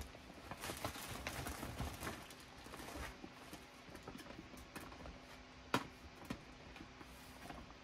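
Faint scattered light taps and clicks, with two sharper clicks about three-quarters of the way through, over a faint steady hum.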